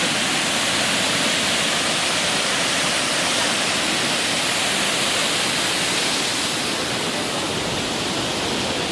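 Water falling from a dam, a steady loud rush with no let-up.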